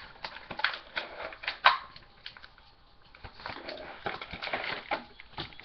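Cardboard and plastic toy packaging being handled and worked open, a string of scattered clicks and scrapes.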